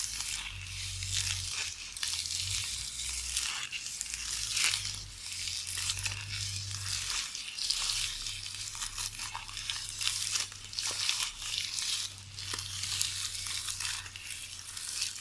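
VHS videotape being knitted by hand: the thin tape band rustles and crackles continuously, with many small crinkling clicks.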